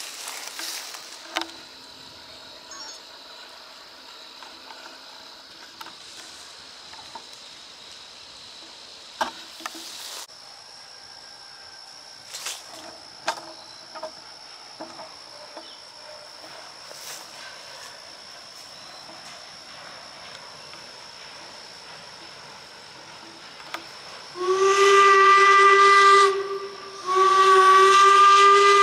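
Steam whistle of the 4-4-0 oil-fired steam locomotive No. 17 "York" blowing two blasts at one steady pitch near the end: one of about two seconds, then a longer one still sounding at the end. Before that there is only quiet background with a faint steady high whine and scattered clicks.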